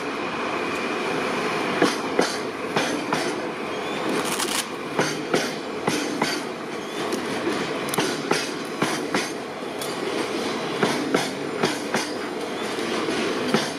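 Freight train of white covered hopper wagons rolling past. The wheels make a steady rumble and hiss on the rails, with irregular sharp clicks and clacks as the wheelsets cross rail joints.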